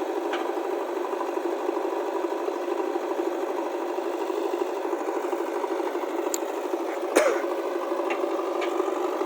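Tractor's diesel engine running steadily with a rapid, even chatter. There is a brief sharp knock about seven seconds in.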